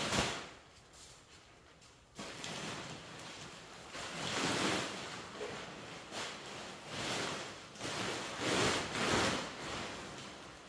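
Swells of rustling noise, several in a row, each lasting a second or two.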